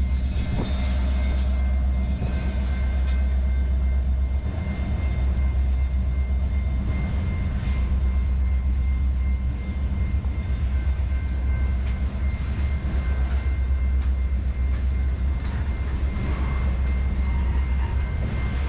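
Freight train rolling past close by: a steady rumble of steel wheels on the rails as the last diesel locomotive goes by and a string of covered hopper and tank cars follows, with scattered clicks from the wheels over the rail joints.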